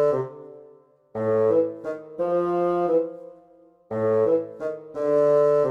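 Background music: a pitched melody in short phrases that repeat about every three seconds, with brief gaps between them.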